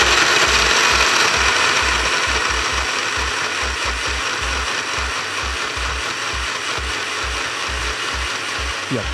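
Electric blender running steadily, blending pieces of Turkish delight with water into a sauce. It stops at the very end.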